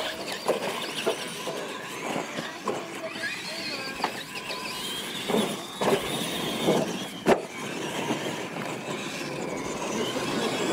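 Electric radio-controlled monster trucks racing on dirt: the whine of their motors and gearboxes rising and falling as they accelerate, with a series of thuds as they hit and land off ramps, the sharpest a little past the middle.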